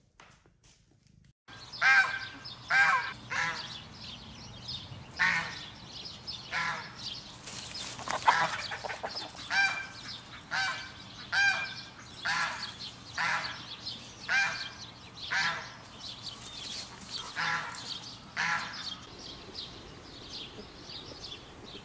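Poultry (ducks and chickens) calling in a long run of short, loud cries, roughly one a second. The cries start about a second and a half in and die away near the end.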